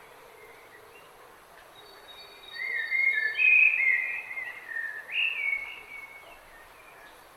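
A songbird sings one warbling phrase lasting about three and a half seconds, starting a couple of seconds in. It is heard over a faint steady hiss.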